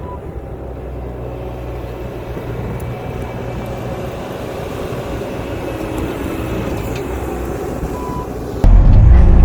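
Diesel engine of a Bobcat T650 compact track loader running steadily under work, slowly growing louder, with a faint short beep at the start and again near the end. Near the very end the sound jumps abruptly to something much louder.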